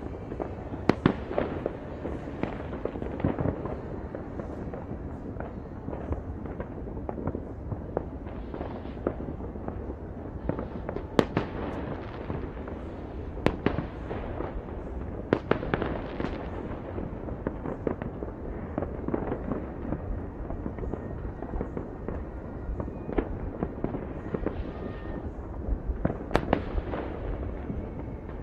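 New Year's Eve fireworks and firecrackers going off all over a city, heard from far off: a dense, unbroken crackle of many small bangs, with a handful of louder, sharper bangs standing out.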